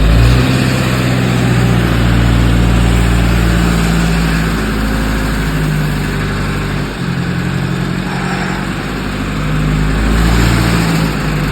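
Chainsaw engine running steadily, its pitch shifting up and down several times as the throttle changes, with a dip about seven seconds in.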